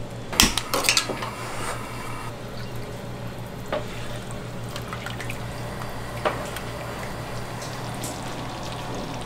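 A utensil clattering against a metal pot of pizza sauce being stirred, mostly in the first second, with a couple of single knocks later, over a steady low hum.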